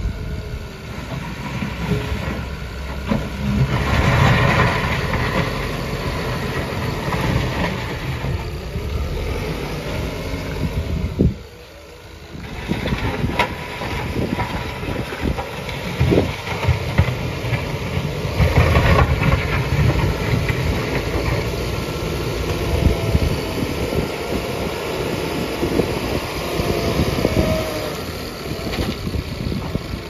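Backhoe loader's diesel engine running under load as its front bucket pushes and levels soil, the engine note swelling and easing as it works. About eleven seconds in the sound briefly drops away before picking up again.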